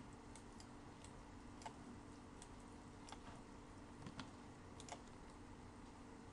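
Near silence with scattered faint clicks of a computer mouse and keyboard at irregular intervals, over a low steady hum.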